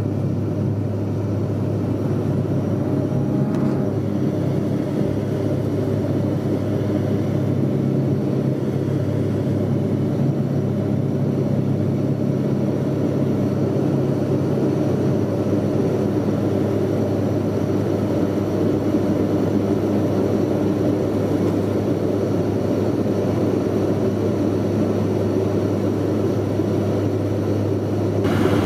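Bombardier Q400 turboprop heard from inside the cabin during lift-off and climb: its Pratt & Whitney PW150A engines and propellers make a steady, loud low drone with rushing noise. The drone stops abruptly near the end.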